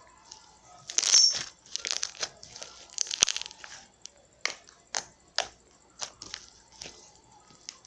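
Freshly made slime being mixed: a few seconds of dense wet crackling and squishing, then a string of sharp pops and clicks, about two a second.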